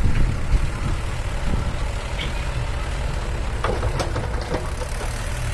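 Heavy diesel engine running steadily with a low rumble. A few short knocks come about three and a half to four and a half seconds in.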